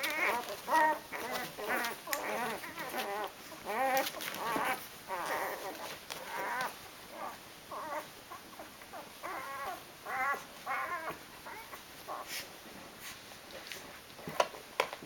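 Eight-day-old Rhodesian Ridgeback puppies squeaking and whimpering while nursing, many short wavering high calls, several a second at first and thinning out later, with a few soft clicks near the end.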